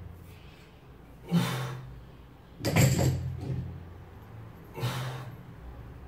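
A weightlifter breathing hard through sumo deadlift reps with a loaded barbell, in three loud, forceful exhalations spaced a second and a half to two seconds apart. The loudest, about three seconds in, opens with a sharp knock.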